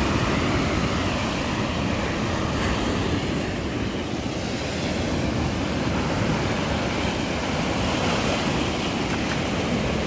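Surf breaking and washing up on a sandy beach: a steady rushing noise.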